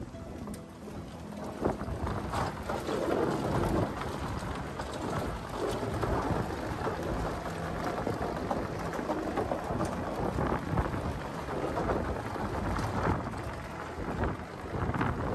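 Continuous rumbling noise from riding in an open golf buggy along a wooden boardwalk: the tyres rattle over the planks while wind buffets the microphone.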